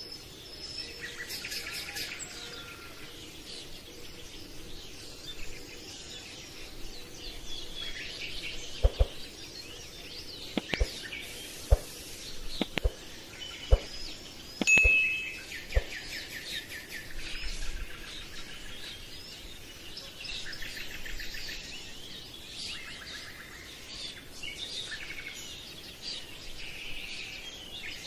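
Birds chirping and calling over a steady background hiss, with a handful of sharp taps or knocks in the middle.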